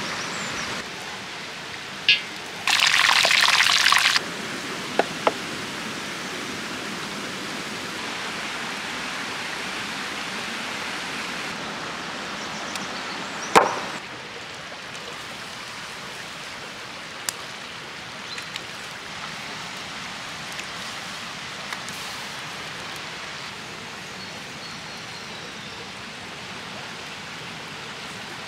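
A creek flows steadily as a constant rushing of water over stones. A few seconds in, a loud harsh hiss lasts about a second and a half. About halfway through, a cast iron skillet is set down over the campfire with a loud clank that rings briefly.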